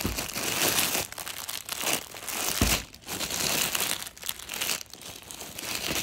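Plastic packaging crinkling as packed clothing is handled, in bursts with short breaks.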